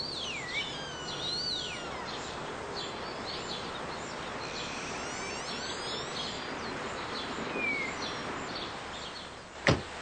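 Birds chirping and whistling over a steady background hiss of outdoor ambience, with the clearest swooping calls in the first two seconds. A single sharp knock comes near the end.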